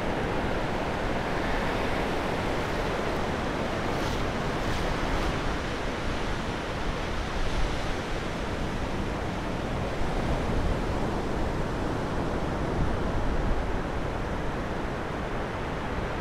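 Sea surf washing up a sandy beach: a steady rush of breaking waves that swells slightly every few seconds.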